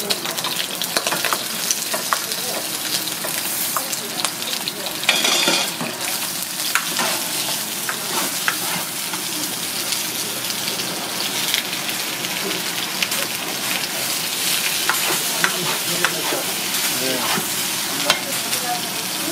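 Vegetables and hagfish pieces sizzling in hot oil in a nonstick wok while being stir-fried with a silicone spoon, with small taps and scrapes of the spoon against the pan. The sizzle swells briefly about five seconds in.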